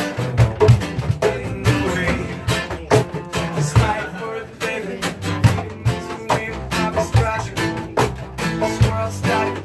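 Live music with guitar: a band playing a song with steady strummed or struck strokes.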